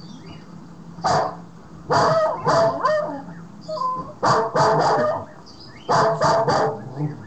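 Dogs barking from a YouTube video played through computer speakers, in short bursts of several barks each, the first single bark about a second in.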